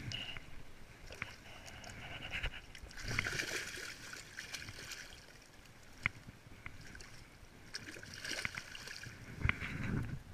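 Water splashing and sloshing in a landing net as a fish, which the angler takes for a grilse (young salmon), is handled and unhooked in the water. The splashing comes in two louder bouts a few seconds apart, with a few small sharp clicks between them.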